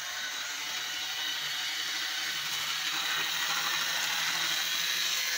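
Vintage Revell SW2000 HO-scale switcher locomotive running at full speed on the track, its small electric motor and gears giving a steady whir that grows a little louder. The running is still somewhat rough, which the owner puts down to the freshly restored loco needing to be run in.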